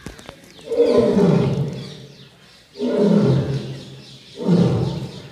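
A lion roaring: three calls in a row, each sliding down in pitch, the last one shorter.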